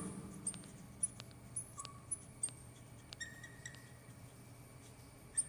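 Marker squeaking and tapping on a glass writing board as a word is written: a scatter of faint short ticks and thin, high squeaks.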